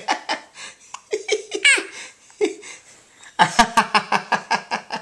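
Laughter and giggling in quick, repeated bursts, with a smiling baby giggling and a high squeal about halfway through.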